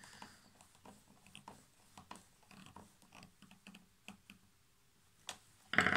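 Small screwdriver turning a screw into an access point's plastic housing: a run of faint, irregular clicks and ticks. One louder, brief knock near the end.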